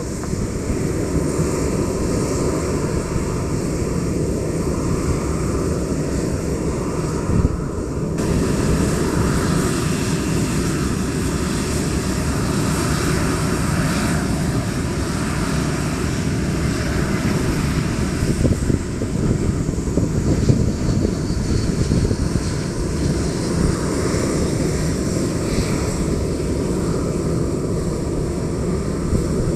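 Jet airliners' turbofan engines heard close by on takeoff and approach: a loud, steady rushing noise that changes abruptly about eight seconds in as one aircraft's sound gives way to another's.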